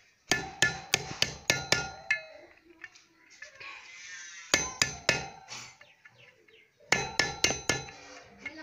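Hammer tapping a screwdriver against the steel lock tabs on a Honda CD70's rear sprocket bolts to bend them straight so the nuts can be loosened. The strikes come in three quick runs of about four to eight each, and each strike leaves a ringing metallic tone.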